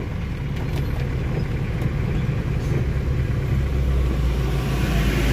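Vehicle engine running as it travels along a road, with a deeper rumble that strengthens about three and a half seconds in. A hiss of rain and wet road grows near the end.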